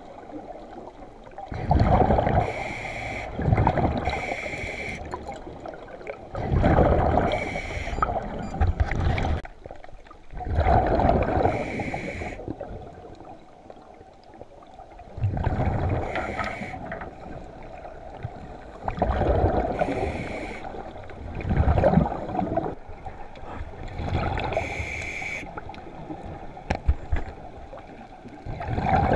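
Scuba diver breathing through a regulator underwater: hissing inhalations alternating with bubbling exhalations, a breath every few seconds.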